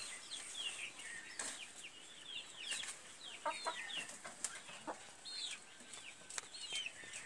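Village hens calling softly, with many short high chirping calls that mostly fall in pitch, and a few sharp clicks.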